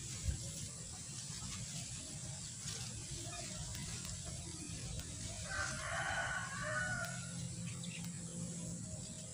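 A white Ayam Ketawa (Indonesian 'laughing chicken') rooster crowing once, starting about five and a half seconds in and lasting under two seconds.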